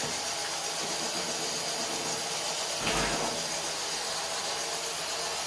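Steady whirring hiss of a small FTC competition robot's electric drive motors as it drives across the field, with one brief knock about three seconds in.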